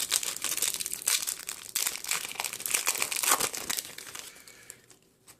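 Foil booster pack wrapper of Yu-Gi-Oh! cards being torn open and crinkled by hand: rapid crinkling and rustling that fades out about four and a half seconds in.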